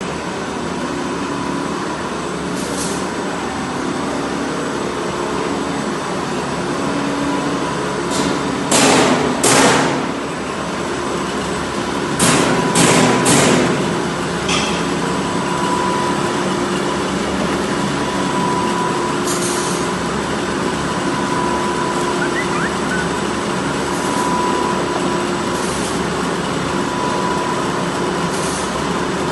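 CNC PVC pipe threading machine running with a steady mechanical hum. It is broken by short, loud hisses: two about nine seconds in, three more about twelve seconds in, and a few fainter ones later.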